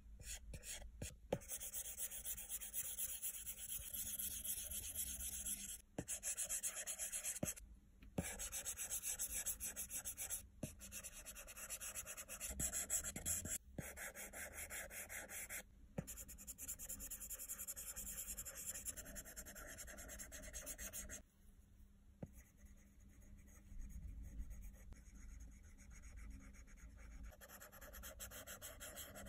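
Stylus tip rubbing and scratching across an iPad Pro's glass screen in painting strokes, with short pauses between strokes and a few light taps of the tip.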